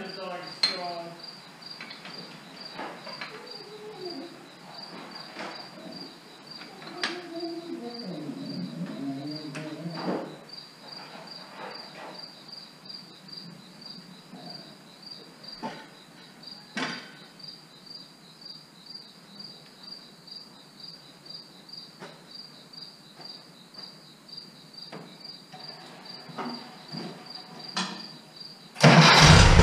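Crickets chirping steadily in the background, with scattered metal knocks and a short grinding scrape from the plow hitch being worked. Near the end the Case tractor's engine starts and runs loudly.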